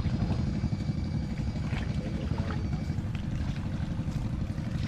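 Small boat's motor running steadily, a low chugging rumble with a few faint ticks over it.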